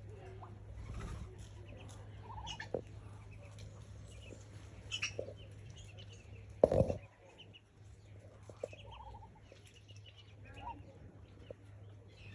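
Ducks and ducklings calling: many short, high peeps from the ducklings, scattered throughout, mixed with a few lower calls from the adults. One louder, lower sound comes about halfway through, over a steady low hum.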